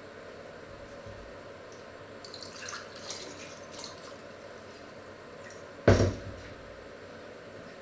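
Faint drips and ticks from lidded pots cooking on the stovetop, over a steady low background, with one loud thump about six seconds in.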